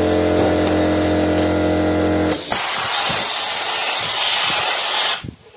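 Air compressor motor running with a steady hum. About two seconds in the hum stops and a loud, even compressed-air hiss takes over for about three seconds, then cuts off sharply near the end.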